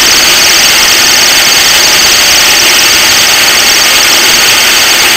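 Logan metal lathe running while a tool takes a taper cut on an aluminum bar, fed by hand with the compound rest crank: a loud, steady machine noise with a strong high hiss.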